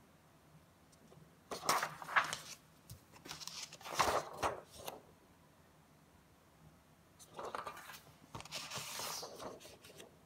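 Handwritten paper cards being handled and swapped: two bouts of paper rustling and sliding, each a few seconds long, the first about a second and a half in and the second about seven seconds in.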